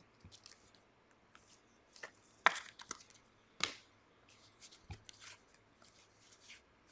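Trading cards being handled by hand: soft rustling and sliding with scattered sharp clicks and taps, the loudest about two and a half and three and a half seconds in.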